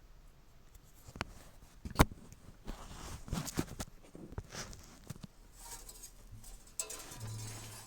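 Quiet handling noises: scattered clicks, taps and rustles, with one sharp click about two seconds in and a short low hum near the end.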